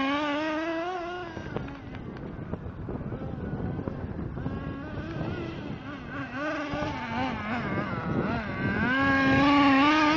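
Nitro RC truck's small glow-fuel engine running at high revs, its pitch wavering as the throttle changes. It is loud at first, drops away for most of the middle, and comes back loud near the end.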